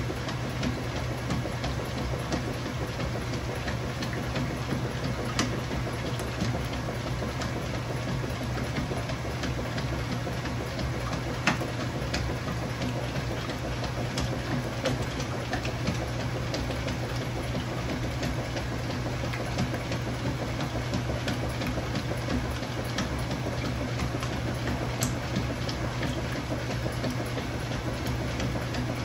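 Kenmore Ultra Fabric Care top-load washing machine running with a KitchenAid Dual Action Agitator fitted: a steady low motor hum under an even mechanical wash noise, with light clicks scattered throughout.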